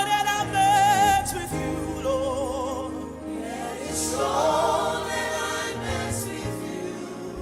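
Gospel worship music: sung notes with vibrato held over sustained keyboard chords, with no clear words.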